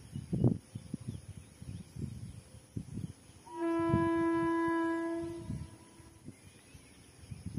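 Indian Railways local train horn: one long, steady blast of about two seconds, starting about halfway through. Irregular low rumbles are heard before and after it.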